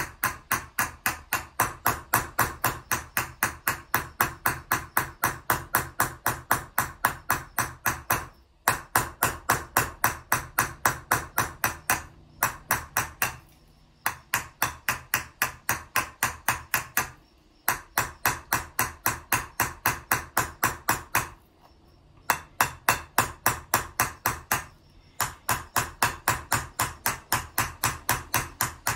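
Round-faced Huang embossing hammer striking a metal vessel held on a leather sandbag. The blows are quick and even, about four a second, in runs broken by brief pauses. This is hammer chasing: a concave trench is being worked into the vessel wall.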